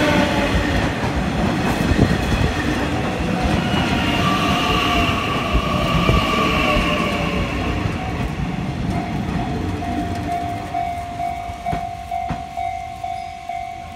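Nishitetsu 9000 series electric train running past at a level crossing: loud rumble of wheels on rail with motor whine slowly falling in pitch, fading after about ten seconds. Then the level crossing alarm rings on steadily.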